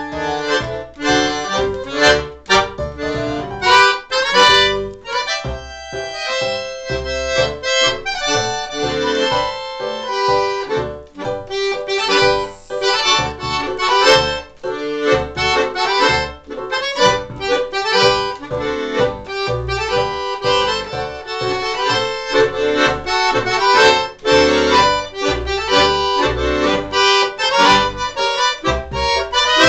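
Solo piano accordion playing a lively tune: a melody on the treble keys over a rhythmic bass and chords from the left-hand buttons.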